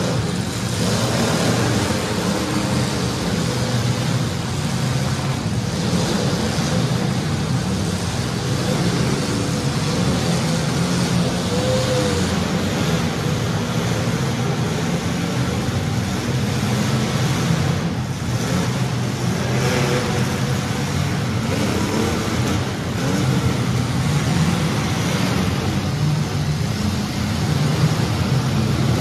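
Engines of several demolition-derby compact cars running and revving together.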